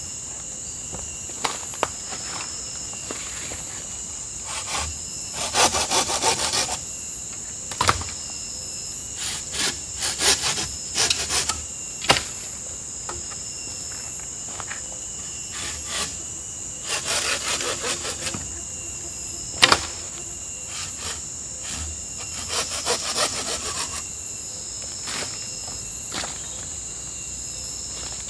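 Bamboo poles of a tripod frame rasping and rubbing in bursts of a second or two as they are worked and lashed together at the crossing, with scattered wooden knocks, the sharpest about two-thirds of the way through. A steady high insect drone runs underneath.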